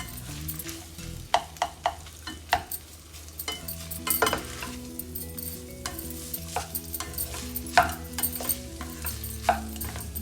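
A spoon scraping and knocking against a pan as rice is stirred and mixed into the seasoned oil and pomegranate, with a sharp clack every second or so. Background music plays underneath.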